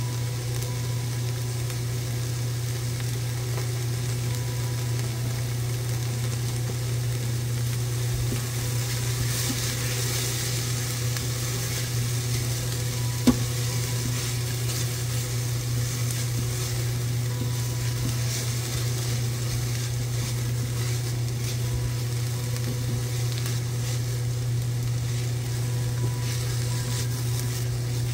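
Diced onions sizzling steadily as they sauté in an Instant Pot's stainless inner pot, stirred with a silicone spatula, over a steady low hum. A single sharp tap comes about thirteen seconds in.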